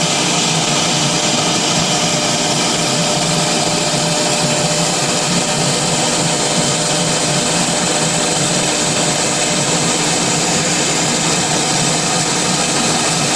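CNC router spindle running steadily while it cuts a 3–4 mm composite panel: a constant machine noise with a steady whine.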